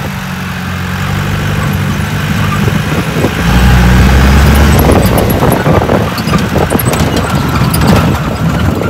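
Jeep 4x4 engine running at low revs while driving a rough dirt track, swelling briefly about halfway through. In the second half it is joined by many quick knocks and rattles from the rough ground.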